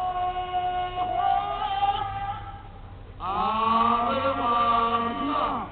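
Tongan group chant sung in long held notes. A held note steps up in pitch about a second in and then fades. About three seconds in, many voices come in together, louder, and hold for about two seconds before stopping.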